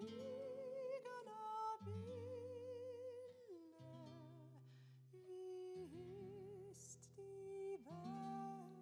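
Slow, wordless humming of a lullaby-like melody in a high voice, with vibrato on the held notes, over a soft instrumental accompaniment of sustained low notes.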